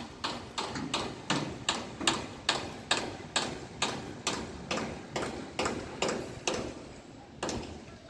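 Footsteps on a concrete floor, an even walking pace of about two steps a second, stopping about two thirds of the way through with one more step near the end.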